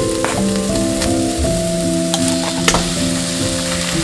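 Bacon, dried anchovies and chili peppers sizzling as they fry in a frying pan, with a few sharp clicks of a wooden spatula against the pan. Soft background music with held notes plays underneath.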